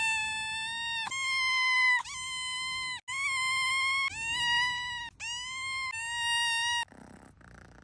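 Domestic cat meowing over and over: about seven long, high meows back to back, each about a second long and held at a steady pitch, stopping about seven seconds in.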